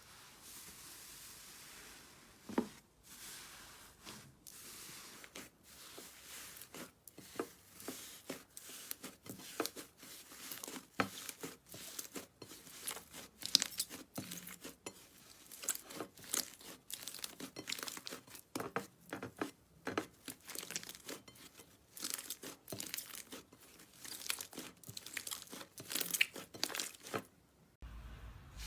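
Slime being squeezed and worked by hand, giving dense, irregular crackling and popping.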